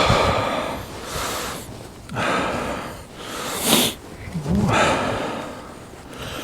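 A man breathing heavily close to the microphone, catching his breath after exertion: about five hissy breaths, roughly one a second, with one sharper, louder intake a little over three and a half seconds in.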